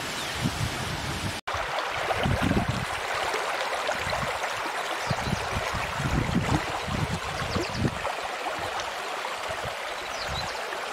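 Shallow stream running over stones, a steady rushing and rippling of water, broken by a brief dropout about one and a half seconds in.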